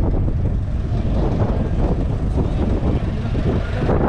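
David Brown 30D's 2.7-litre four-cylinder diesel engine running steadily.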